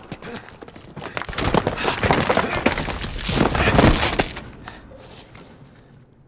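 Cave-in: rocks and rubble crashing down in a dense clatter of impacts that builds, peaks about three and a half seconds in, then dies away.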